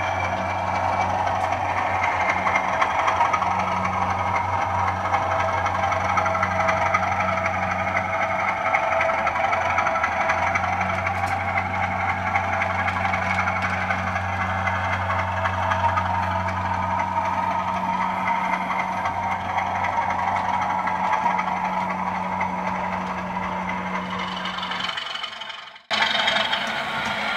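Bachmann 00 gauge Class 37 model locomotive running past with its train of wagons: a steady drone with a low hum and rolling wheel noise on the track. The sound drops out briefly about 26 seconds in, then carries on.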